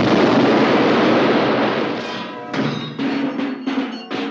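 Orchestral film score: a loud, full sustained passage for about two seconds, then a series of separate percussive strikes over held chords, growing fainter near the end.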